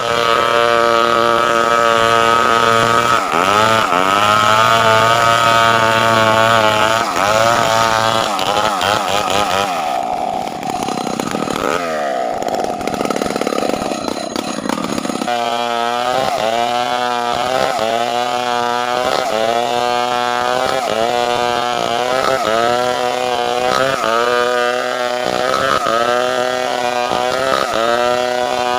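Two-stroke chainsaw running hard while cutting timber into boards. It holds a high, fairly steady pitch at first, turns ragged midway, then revs up and down over and over, about once every second and a half, as the chain bites and frees in the cut.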